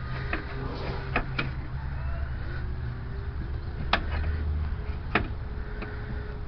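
Scattered sharp clunks and taps, about six of them, as a new strut assembly is worked up into place in the wheel well, over a steady low rumble.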